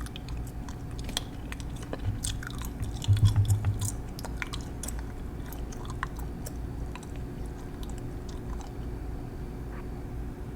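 Close-miked small clicks, crackles and light rubbing from cleaning up freshly painted fingernails, with a brief low bump about three seconds in; the clicks thin out after about six seconds.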